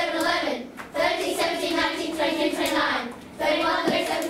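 A class of children chanting the prime numbers together in unison, in a sing-song rhythm, with two brief pauses for breath.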